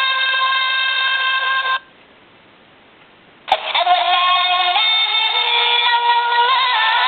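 Electronic alarm clock playing a sung recording through its small, tinny speaker. The sound stops just under two seconds in. After a sharp click about a second and a half later, it starts again.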